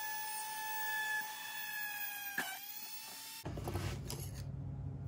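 Handheld rotary tool drilling a small hole through the tail of a wooden lure: a steady high motor whine whose pitch dips briefly as the bit bites, about two and a half seconds in. The tool stops suddenly about three and a half seconds in, and low handling and rustling sounds follow.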